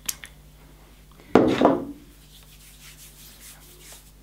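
Skin rubbing on skin as face oil is worked into the wrist: a click at the start, a loud brief swish about a second and a half in, then faint, steady rubbing.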